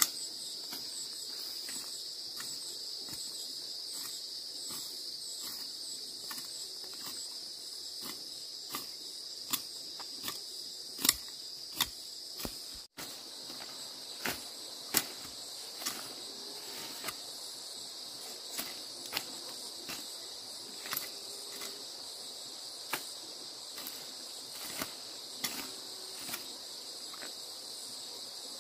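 Steady high-pitched chorus of crickets or other insects, with scattered sharp clicks and taps every second or so, loudest about a third of the way in.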